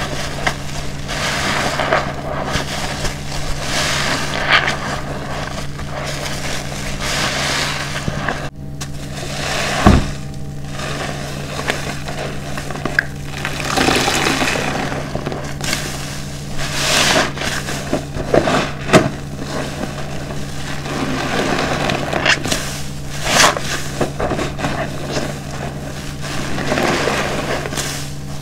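Large car-wash sponge soaked in foamy dish soap, squeezed and kneaded by hand: wet squelching and crackling of bursting suds in repeated squeezes, with soapy water pouring out of the sponge into a basin.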